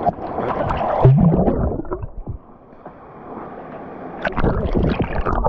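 Water splashing and rushing close to the microphone at a waterfall pool, rising and falling in loudness, dropping away briefly in the middle and surging again near the end.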